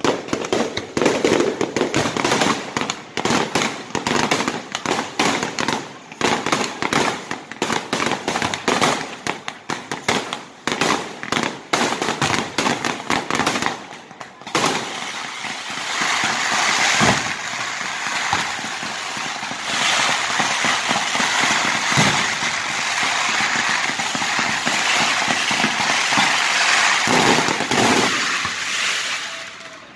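Aerial fireworks display: a rapid barrage of cracks and bangs for about the first half, then a dense, continuous crackle with a few louder bangs standing out.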